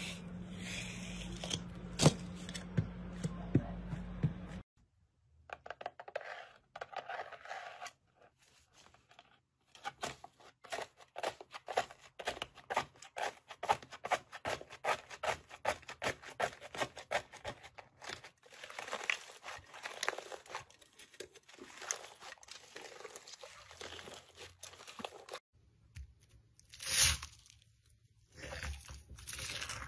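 Hand-played slime: a sheet of slime peeled up over a steady low hum, then hands pressing a textured blue slime in a tray, which crackles and pops in quick irregular clicks for about fifteen seconds. Near the end, a few louder squishes as a hand works clear slime full of foam beads.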